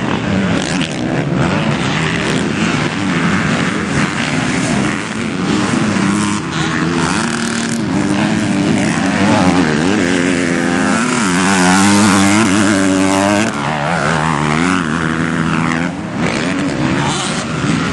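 Motocross dirt bike engines revving up and down. Several bikes overlap, their pitch rising and falling, loudest about two-thirds of the way through.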